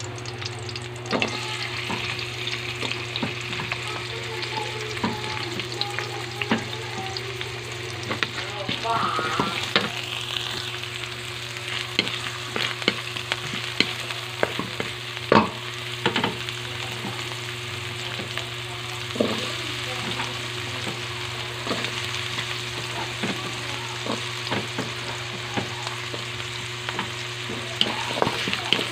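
Garlic and diced onion sizzling in oil in a metal pan, stirred with a wooden spatula that scrapes and knocks against the pan, giving frequent clicks over the steady sizzle.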